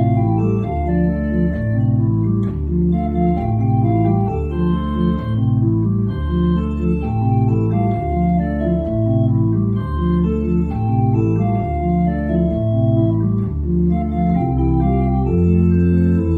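Small church pipe organ playing a chordal piece, the chords and bass line changing about twice a second, with a longer held chord near the end.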